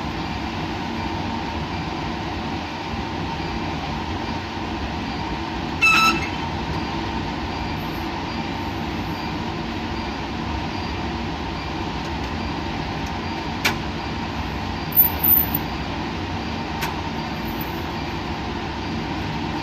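Steady mechanical hum and rushing noise with a few faint hum tones, like running lab equipment or ventilation. A short high beep sounds about six seconds in, and a couple of sharp clicks and small blips follow later on.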